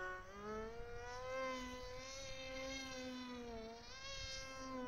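Radio-controlled model F-22 airplane's motor running with a whining hum whose pitch wavers up and down as the throttle changes.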